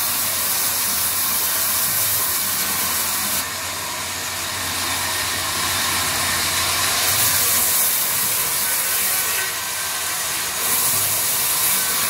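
Sawmill band saw running and ripping a mahogany plank lengthwise: a loud, steady hiss over a low motor hum, the high hiss falling away and coming back a few times as the plank is fed through.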